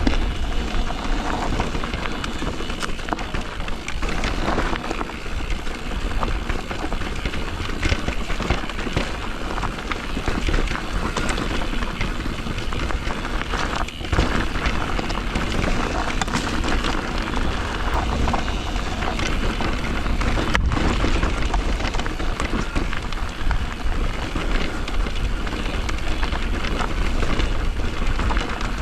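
Riding noise from an e-mountain bike descending a rough trail: wind rushing over the microphone and tyres crunching over roots and stones, with scattered clicks and knocks from the bike.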